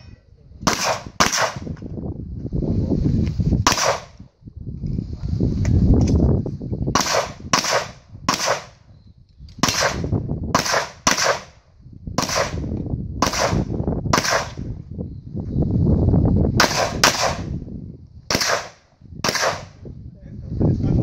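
9mm Glock 34 pistol fired rapidly, about twenty shots in quick pairs and short strings with brief pauses between. A low rushing noise fills the gaps between strings.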